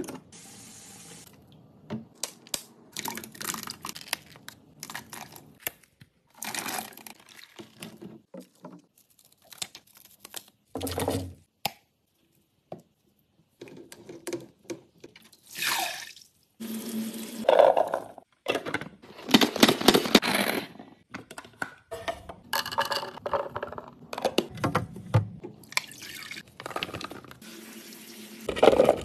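A string of short kitchen clips: produce being rinsed under a running tap, with dripping and splashing, mixed with brief clatters and rustles of handling. The clips are cut together abruptly, with a moment of dead silence partway through.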